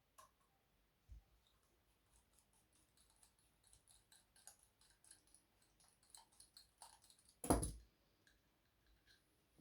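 Hand tools and small parts being handled while removing a nitro RC truck's exhaust: a run of faint small clicks and ticks, then one louder knock late on.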